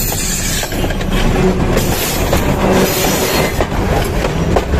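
Diesel locomotive and its train passing directly over a phone lying between the rails: a loud, close rumble of wheels and running gear with many sharp clacks.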